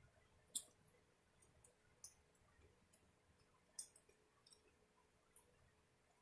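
Near silence broken by a few faint, sharp clicks of eating, the clearest about half a second in, at two seconds and near four seconds.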